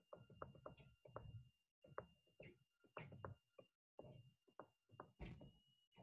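Faint, irregular taps and scratches of a stylus writing on a tablet, over a faint steady high-pitched whine.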